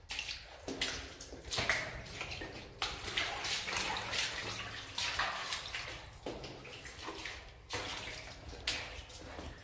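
Footsteps wading and splashing through shallow water on a flooded mine tunnel floor, at an uneven pace of roughly one step a second.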